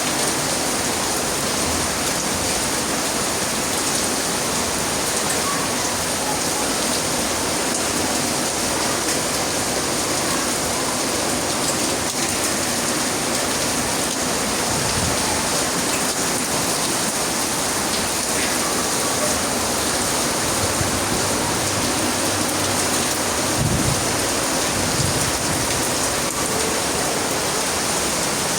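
Steady heavy rain falling and pattering on surfaces, an even hiss throughout, with a brief low rumble about 24 seconds in.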